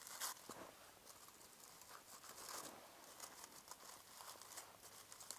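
Aluminium foil crinkling faintly as a foil packet is unwrapped by hand, in small irregular crackles, the loudest just after the start.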